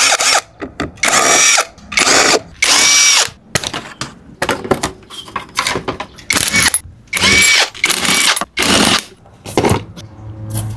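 JRP full-CNC brake being applied again and again: a string of short hissing, scraping bursts of pad on disc, several with a faint squeal that rises and falls.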